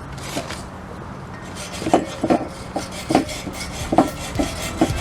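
A coarse scrubber rubbed by hand against a metal scooter frame, scraping off paint softened by aircraft paint stripper. Rasping back-and-forth strokes that become sharper and more distinct about two seconds in, roughly two a second.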